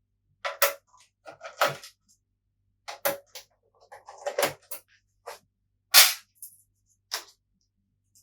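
PlayStation 4 Pro parts being handled during disassembly: a string of separate clicks, clacks and rustles, the loudest a sharp knock about six seconds in.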